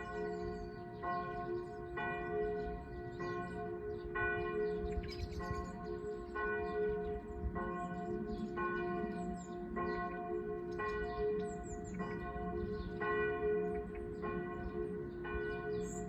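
Peal of the Münchaurach monastery church bells, with a fresh strike about once a second over the steady hum of the bells still sounding. Faint bird chirps come through above.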